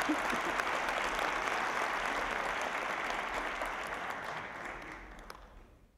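Concert audience applauding steadily, a dense patter of many hands clapping, fading out over the last two seconds.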